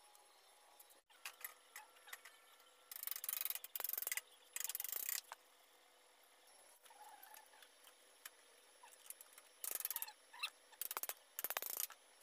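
Ratchet wrench clicking rapidly in about five short bursts as a bolt is turned on a steel frame, with a few faint taps and clicks between.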